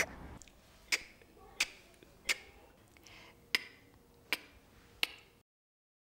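A young girl saying the pure phonics sound for the letter c, a clipped unvoiced 'k' with no vowel after it, seven times over. Each one is a short sharp click with a little breathy puff.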